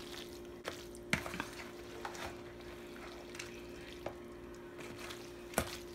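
A spoon stirring imitation crab and mayonnaise-coated pasta salad in a plastic bowl. The stirring is quiet and wet, with a few light clicks of the spoon against the bowl, over a faint steady hum.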